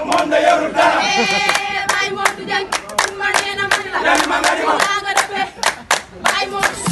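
Voices singing together with steady rhythmic hand-clapping.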